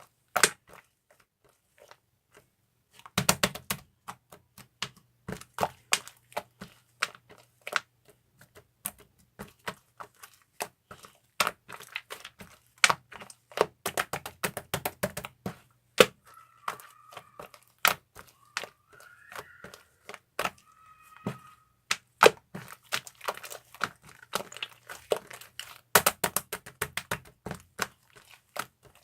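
Slime being played with, giving an irregular run of crackling clicks and pops, some sharp and loud.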